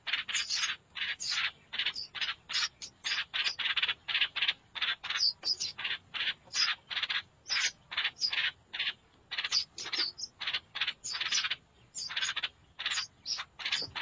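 Nestling songbirds begging in the nest: a rapid, unbroken run of short raspy calls, about three a second.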